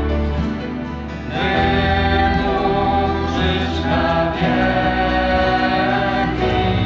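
Christian worship song: voices singing a slow melody over sustained accompaniment, swelling louder about a second and a half in.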